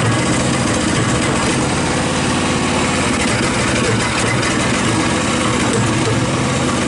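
Typhon Terror One one-ton mini excavator's engine running steadily under some throttle as the machine tracks across blacktop.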